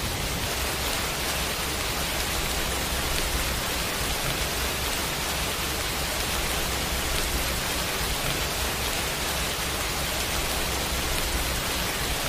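Steady heavy rain: an even, unbroken hiss of pouring rain with a steady low rumble underneath.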